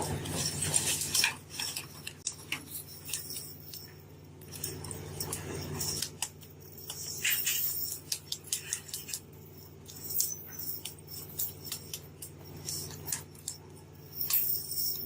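Irregular sharp metallic clicks and clinks over a steady low hum.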